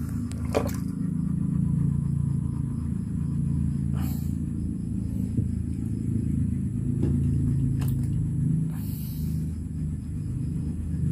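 A plastic sack crackles and wet squid are handled and set down on a table, a few short rustles and clicks, over a steady low rumble.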